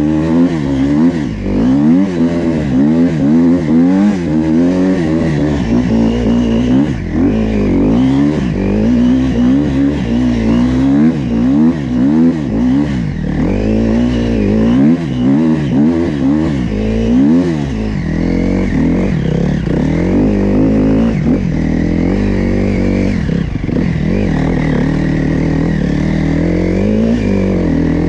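Dirt bike engine under way, its pitch rising and falling about once a second as the throttle is worked, then holding a steadier note for the last third.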